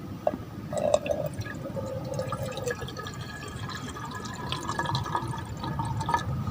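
Water in a cooking pot for tea, trickling and dripping, with a falling tone in the first few seconds and scattered small ticks.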